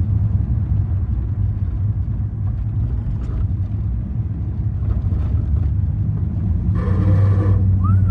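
Car with a Holden Trimatic three-speed automatic transmission running with a steady low drone. About seven seconds in there is a brief higher-pitched noise, then a short squeal that rises and falls at the very end: the strange transmission noises under investigation.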